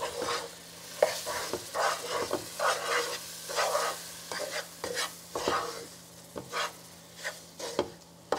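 Wooden spoon stirring and scraping whole-wheat flour around a nonstick pot in repeated strokes, about two a second, with the oil and melting butter sizzling lightly: the flour is being toasted in fat for halva.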